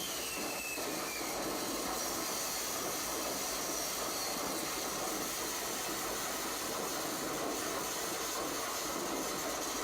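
Steady hiss, with a faint whistle falling in pitch during the first second.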